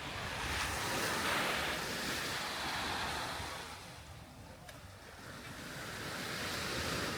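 Sea waves washing onto a beach: the surf swells for a few seconds, ebbs about four seconds in, then builds again near the end.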